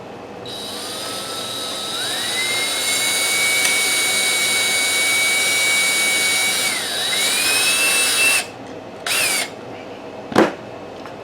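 Electric drill with a small bit boring a hole in a wooden hive top bar: the motor whine climbs as the trigger is squeezed, holds steady, dips briefly as the bit bites and climbs again, then stops. A short second burst of the drill follows, then a single knock near the end.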